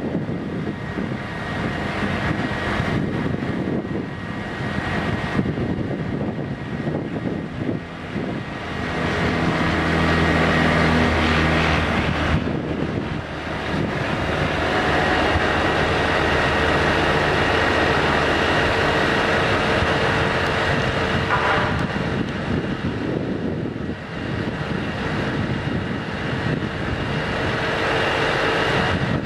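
Truck diesel engine running at raised revs to power a loader crane's hydraulics while it hoists a heavy load, with a steady hydraulic whine over it. The engine note gets louder and steadier about nine seconds in, dips briefly around thirteen seconds, then holds steady.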